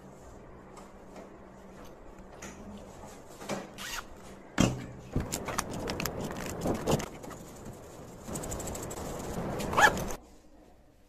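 Zipper of a fabric pencil pouch being pulled, with rustling and clicking as the pouch and its contents are handled. A sharp louder click comes near the end, and the handling stops suddenly.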